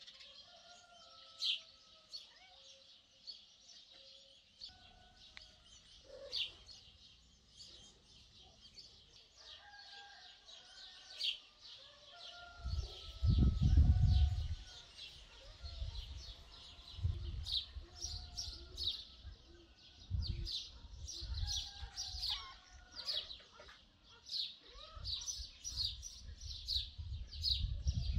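Small birds chirping in short, high, repeated calls that grow much denser in the second half, with slower, lower-pitched calls beneath them. A low rumble on the microphone about halfway through is the loudest sound, with weaker low thumps after it.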